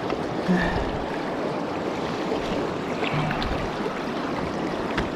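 Swollen river water rushing steadily past, an even wash of flowing water with a few faint ticks in it.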